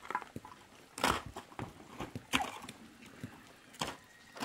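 Slow footsteps crunching on gravel, a step about every second and a half.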